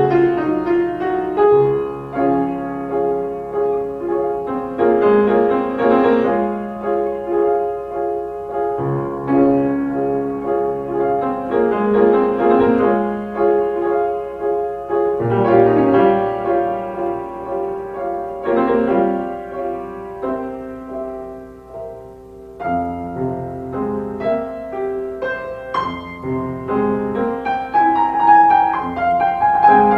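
Piano music playing, with a brief quieter passage a little past the middle.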